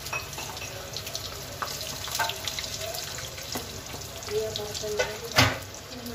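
A metal spoon scraping and tapping against plastic plates and a bowl as ragda is spooned onto potato patties, with a sharp knock about five and a half seconds in, over a steady hiss.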